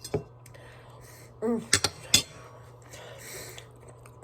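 Eating utensil clinking against a dish a few times, sharp short clinks, with a brief vocal murmur about a second and a half in and a heavy breath around three seconds in.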